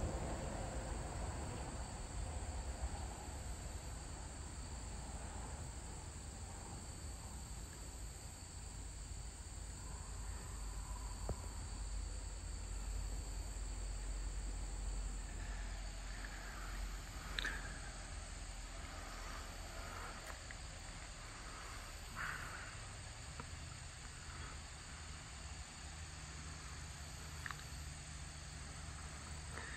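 Evening chorus of crickets and other insects, a steady high-pitched trill, over a low rumble. A few short chirps and clicks come in the second half.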